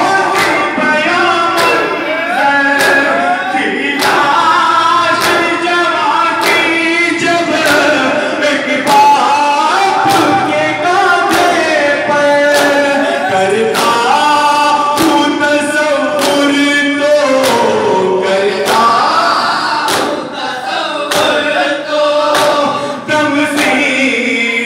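A group of men chanting an Urdu noha lament in unison. It is punctuated by the crowd's rhythmic matam, hands striking chests in time with the chant, about three strikes every two seconds.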